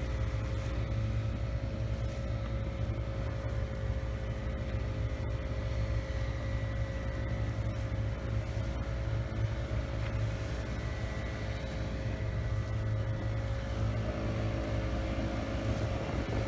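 Boat engine running steadily: a low drone with a steady whine over it and a wash of water and wind noise.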